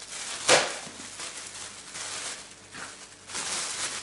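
Thin plastic food bag rustling and crinkling as it is opened and handled and pieces of raw chicken are slid into it, with a sharp crackle about half a second in and a longer rustle near the end.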